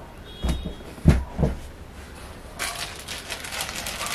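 Hands patting a folded cotton silk saree flat on a cloth-covered table: three soft thumps, then about a second and a half of crinkly rustling from a clear plastic wrapping sheet.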